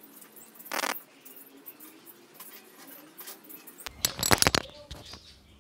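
Scattered small clicks and a short rustle about a second in, then a burst of rubbing, crackling and low knocks near the end as a clip-on microphone is handled.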